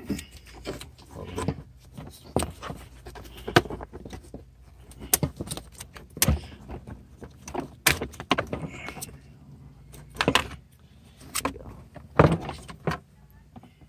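Hard plastic interior trim panel of a Honda Civic's center console being pried and pulled loose by hand: an irregular string of sharp clicks, knocks and rattles as its clips pop and the panel shifts.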